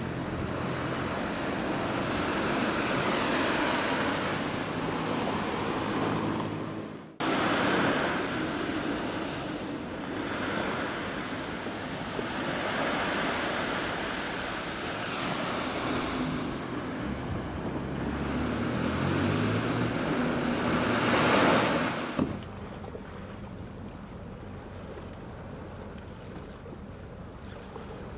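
Waves washing on the shore, with wind buffeting the microphone. The sound breaks off abruptly at about 7 seconds and again at about 22 seconds, and it is quieter after the second break.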